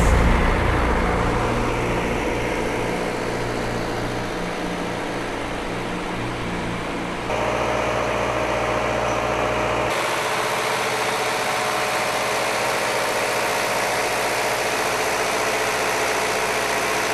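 Engine of cable-pulling equipment running steadily at a constant pace. Its tone changes abruptly about seven and again about ten seconds in.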